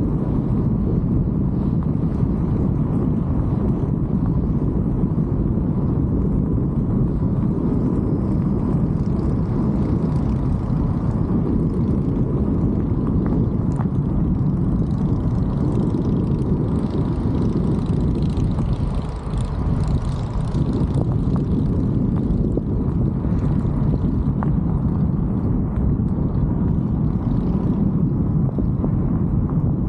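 Steady wind rush buffeting the microphone of a helmet-mounted camera as an e-bike rides along at speed. A faint steady tone runs underneath, and the rumble eases briefly about two-thirds of the way through.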